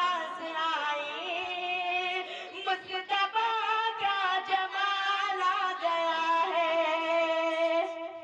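A boy's solo voice singing an Urdu naat into a microphone, with no instruments: long held notes that waver and slide between pitches.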